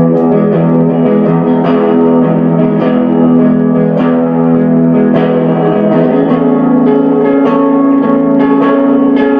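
Guitar playing an instrumental passage with no singing: notes plucked about once a second and left ringing into one another.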